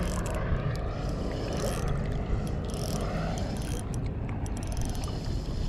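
Steady low rumble and water noise around a small fishing boat, with scattered light clicks.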